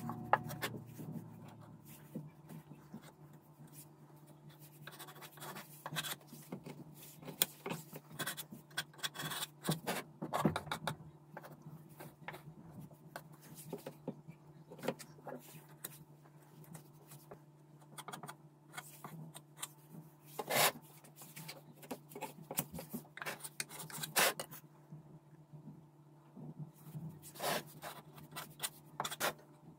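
Putty knife scraping and spreading filler over a damaged corner of a speaker cabinet, in short irregular strokes with sharp scrapes now and then, over a steady low hum.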